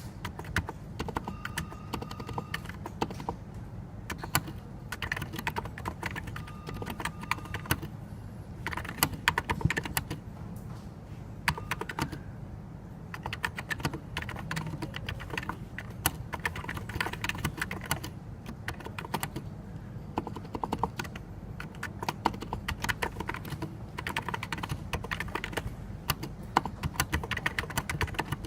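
Continuous fast typing on a NiZ Plum 84, a Topre-clone electrostatic capacitive keyboard, with many rapid keystrokes and short pauses now and then.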